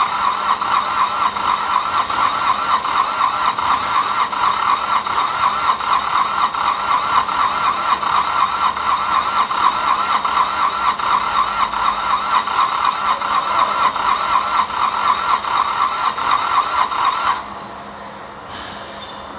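Starter motor cranking a Kubota D905 three-cylinder diesel, a whining drone with an even beat of about four compression pulses a second, for about seventeen seconds without the engine catching, then it cuts off suddenly. This is the engine's hard starting.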